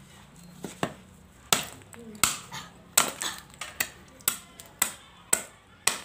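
A golok (machete) chopping repeatedly into a coconut: about ten sharp strikes, roughly one every half second, with the blade biting smoothly as it is tested for sharpness.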